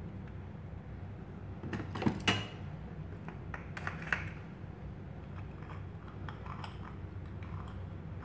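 A metal C-clamp clinking and knocking against a wooden block as it is fitted and its screw turned, with small clicks throughout and the loudest knocks about two seconds in, another near four seconds.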